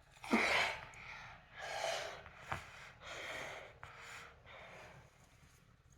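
A child's repeated breaths: sharp intakes and puffs of air blown into a whoopee cushion to inflate it, about five in a row, growing weaker toward the end.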